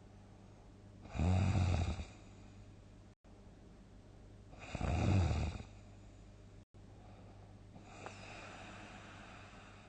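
A person snoring loudly in deep sleep: two big snores about three and a half seconds apart, then a much softer breath near the end.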